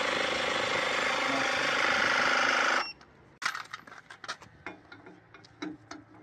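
A steady mechanical drone with a held hum cuts off abruptly about three seconds in. Then come scattered sharp metallic clicks and taps of a steel cross wheel brace working the wheel nuts of a camper wheel.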